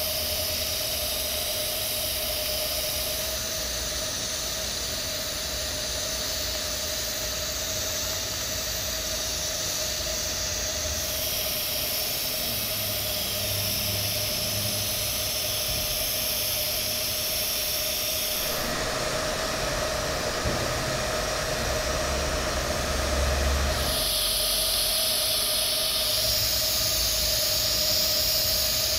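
TIG welding arc running steadily on carbon steel pipe during the cap pass: a steady hiss with an even hum through it. The hiss changes character abruptly several times.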